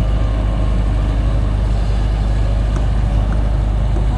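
Diesel engine of heavy construction machinery, a dump truck or excavator, running steadily with a deep low rumble.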